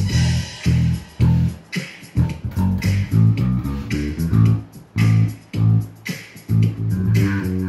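Electric bass guitar played solo in a rhythmic riff: low plucked notes at about two a second, each with a sharp, percussive attack.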